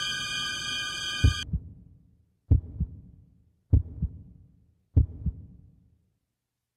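Eerie held tones of suspense music cut off about a second in, followed by a heartbeat sound effect: four slow, low double thumps (lub-dub), a little over a second apart.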